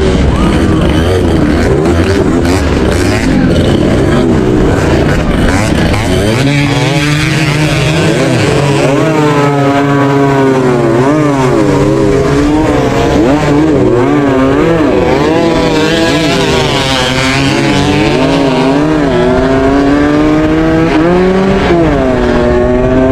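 Racing motorcycle engines revving hard, their pitch climbing and dropping again and again over a steadier lower engine note. The first six seconds are a denser mix of engine noise.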